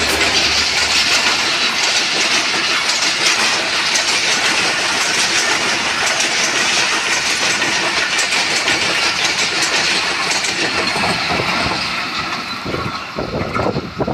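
Pakistan Railways diesel-hauled passenger train passing close by at speed: a loud rush of wheels on rail with rapid clatter from the coaches' wheels. It fades near the end as the last coach pulls away.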